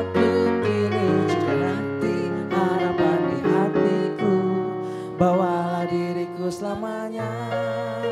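A man and a woman singing a slow love song together, accompanied by a keyboard playing piano chords.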